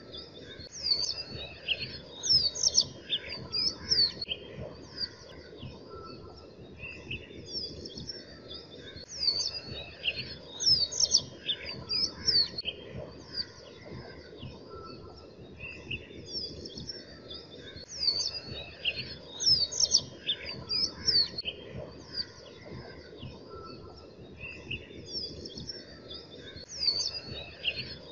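Birds chirping in quick high clusters of calls that come back roughly every nine seconds, over a steady low rushing noise.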